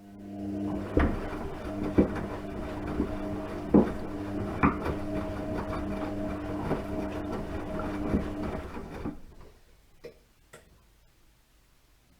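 Washing machine running: a steady motor hum with irregular knocks as the drum turns, winding down and stopping about nine seconds in, followed by two short clicks.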